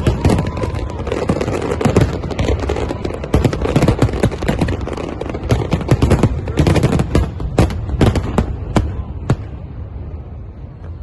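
Fireworks going off in a dense, rapid crackle of bangs. In the second half it thins to separate sharp cracks, the last few about half a second to a second apart.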